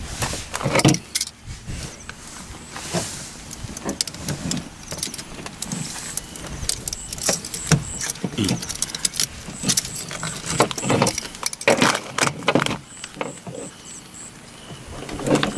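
Irregular clicks, taps and rustles of hands handling electrical wires, a bulb socket and a plastic lamp housing while rigging a homemade lamp.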